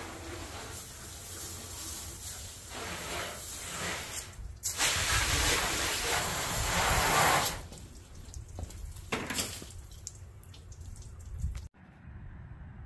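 Water spraying from a garden hose nozzle onto a pickup truck's body and the wet concrete, heaviest about five to seven seconds in, then easing off to a few short squirts.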